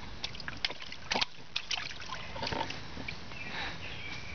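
Water splashing and sloshing in a plastic storage tub as a baby pats and slaps at it with his hands: a quick run of short, sharp splashes over the first three seconds or so.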